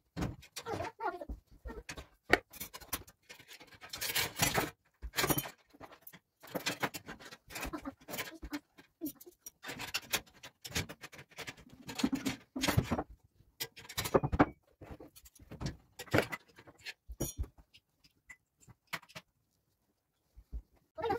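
Hands rolling grape leaves around a filling on a wooden cutting board: irregular rustling and crinkling of the wet leaves with light taps on the board, pausing for a couple of seconds near the end.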